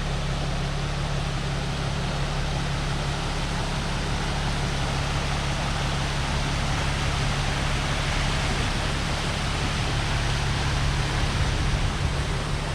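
Vehicle creeping along slowly: a steady low engine hum under a continuous rushing noise that swells slightly in the second half.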